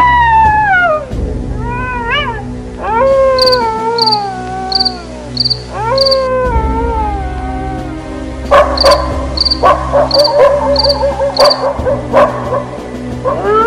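Dogs howling in long wails that fall in pitch, layered over a low, steady horror-music drone, with a high chirp repeating about twice a second through the middle.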